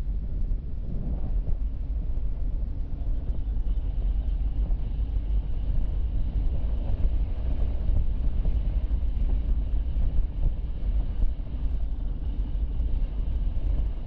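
Moving car's road and wind noise, a steady low rumble, with a faint thin high whine joining a few seconds in.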